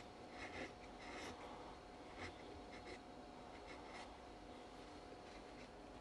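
Faint, irregular scraping of a sharp kitchen knife shaving half-set plaster, stroke by stroke, the strokes thinning out after about two seconds. The plaster is still soft enough to cut cleanly, though it is getting hard. A faint steady hum runs underneath.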